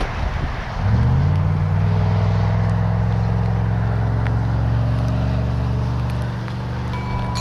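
A motor vehicle's engine running at a steady low pitch, coming in about a second in with a slight rise and then holding even. Wind rumbles on the microphone before it.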